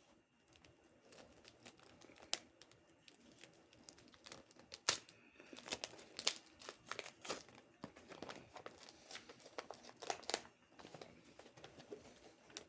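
Paper being handled, crinkled and torn open, with irregular rustles and sharp crackles, loudest about five seconds in and again near ten seconds.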